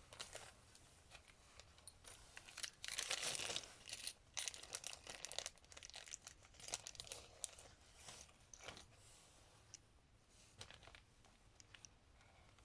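Crinkling and tearing of small plastic parts packaging being handled, with scattered light clicks, busiest from a couple of seconds in until the middle, then sparse.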